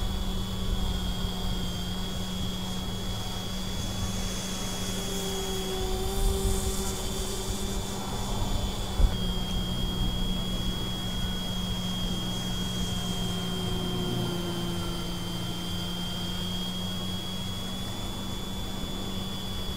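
Radio-controlled model airplane's motor and propeller droning steadily in flight, its pitch stepping down slightly about nine seconds in, with wind rumble on the microphone.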